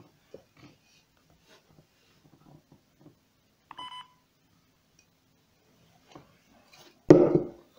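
Symbol MC9060 handheld terminal giving one short electronic beep about four seconds in, amid faint key clicks. Near the end comes a loud thump of the device or an object being handled.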